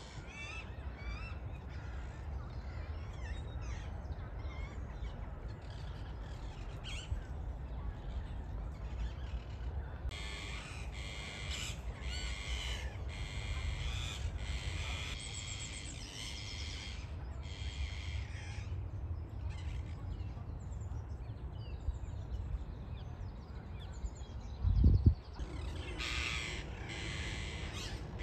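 Rose-ringed parakeets screeching in quick harsh runs, about two calls a second, in the middle of the stretch and again near the end, over a steady low rumble. A single loud low thump comes shortly before the last run.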